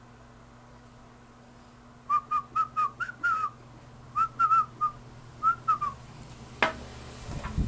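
Short whistled chirps, each note a quick rise and fall in pitch, in three rapid groups: about seven notes, then four, then three. A single sharp click follows near the end.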